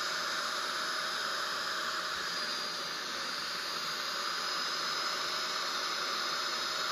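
Bissell SpotClean Pro upholstery cleaner running its suction, the nozzle drawing water and foam out of the couch fabric: a steady rushing hiss with a faint high whine.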